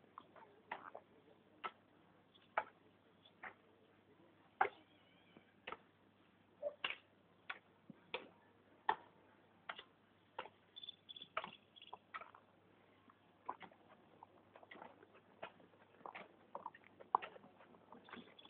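Faint, irregular sharp clicks and taps, about one or two a second, over a low steady hum.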